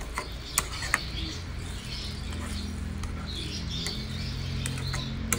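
Metal spatula scraping and tapping against a nonstick frying pan while stirring egg into rice, with several sharp clicks as it knocks the pan and squeaky scraping between them.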